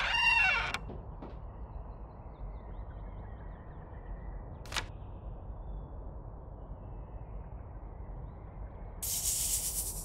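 Cartoon sound effects: a short squealing creak with a falling pitch as a door swings shut, then a low steady hum with one sharp click about halfway through, and a burst of hiss in the last second.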